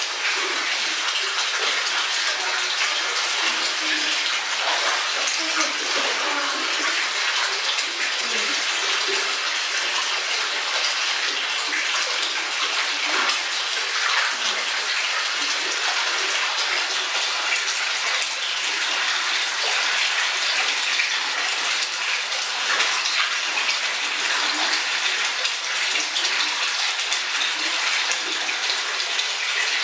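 Hot spring water pouring steadily into a rock-lined open-air bath, an even rushing of running water, with some light splashing in the first few seconds as a bather wades in and sits down.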